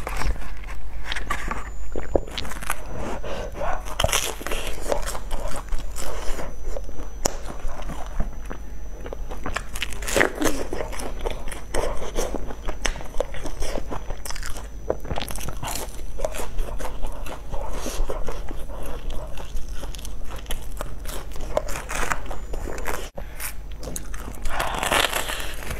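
Close-miked biting and chewing of a crumb-coated fried bun, its crisp crust crunching between the teeth.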